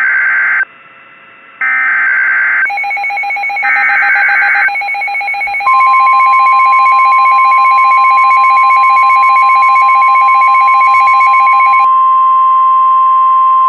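EAS alert tones on NOAA Weather Radio: three short warbling SAME digital header bursts, then the steady 1050 Hz weather radio warning alarm tone starting about halfway through. A fast-pulsing electronic beep runs beneath from about a third of the way in and cuts off near the end, leaving the steady tone alone.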